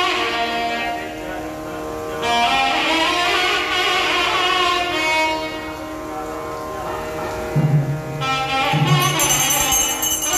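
Instrumental music in a Carnatic style: a melody line gliding over a steady drone, with low beats coming in about three quarters of the way through and a high ringing joining near the end.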